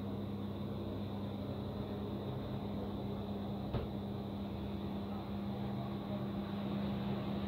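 Steady low mechanical hum with background noise, broken once by a short click a little before the middle.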